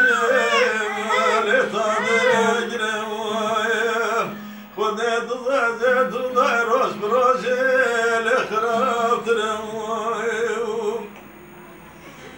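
A man singing a wavering, ornamented folk melody while strumming a bağlama (long-necked saz). The voice breaks off briefly about four seconds in, and near the end the singing stops and it goes much quieter.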